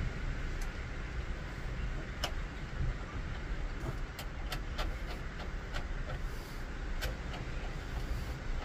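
Scattered small clicks and handling noise as a nut is threaded loosely by hand onto a battery terminal stud, over a steady low rumble.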